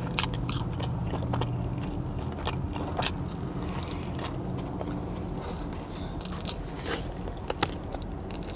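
A woman chewing a bacon double burger close to the microphone and biting into it again, with scattered wet mouth clicks and smacks over a steady low hum.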